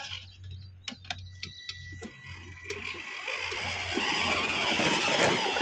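Battery-powered ride-on toy 4x4 car's electric drive motors and gearboxes running with a low hum and a few sharp clicks, joined by a faint steady whine. About three seconds in it gives way to a louder, even rushing noise.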